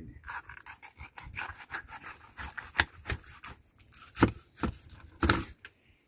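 Knife cutting and scraping through a freshly landed tuna on a wet cutting board: a run of irregular wet clicks and scrapes, with a few sharper knocks of blade and fish against the board in the second half.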